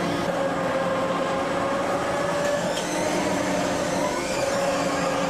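Enterprise fairground ride machinery running: a steady mechanical hum with a slightly wavering motor whine.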